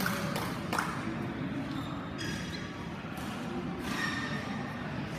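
Badminton rackets striking a shuttlecock in a doubles rally: a few sharp hits close together in the first second, then a couple more spaced out, over background chatter.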